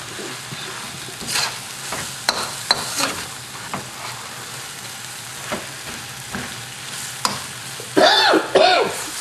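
Spaghetti with eel and onion frying in a hot wok: a steady sizzle under the clicks and scrapes of metal tongs stirring and tossing the noodles against the pan, with a few louder scrapes near the end.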